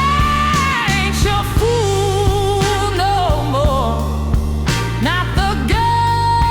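Slow blues music: a lead melody that slides, bends and wavers with vibrato, over a steady bass line and regular drum beats.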